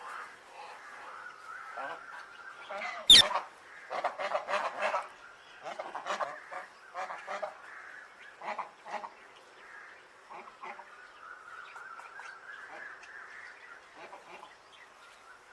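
Parrots squawking and chattering, with a sudden loud sharp sound about three seconds in. Bursts of harsh squawks follow over the next several seconds, then the calls settle back to softer chirping.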